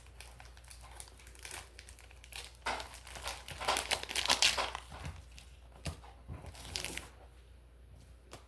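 A plastic snack wrapper being crinkled and torn open, the crackling loudest and busiest a few seconds in, then tapering off to faint rustles.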